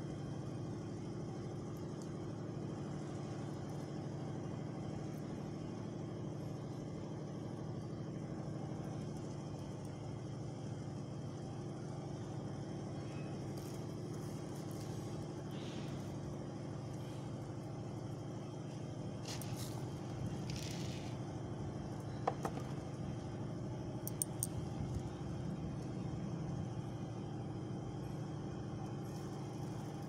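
Steady low mechanical hum, with a few faint clicks and taps in the second half as small objects are set into a straw nest.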